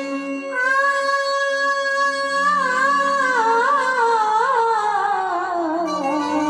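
A woman's voice singing a long held note that, about three seconds in, descends in wavering ornamented turns, over a steady instrumental accompaniment.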